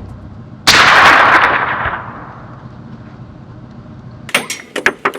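A single rifle shot: a sudden loud crack about a second in that dies away over a second or so. Near the end come several sharp metallic clicks in quick succession.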